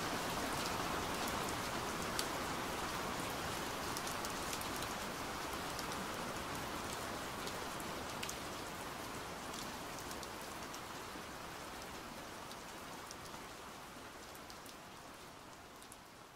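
Steady rain, with scattered separate drop hits, fading slowly and evenly toward silence.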